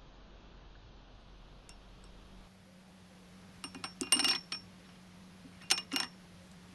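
A metal tube set down in a ceramic bowl, clinking and rattling against it with a brief ring. There are two short clusters of knocks, the first a little under four seconds in and the second about two seconds later.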